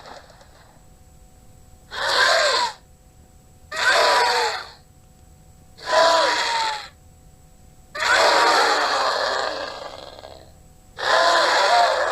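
Griffin creature sound effects: a run of raspy, breathy screeches, one about every two seconds, each with an arching pitch. The fourth call, about eight seconds in, is drawn out longer than the rest.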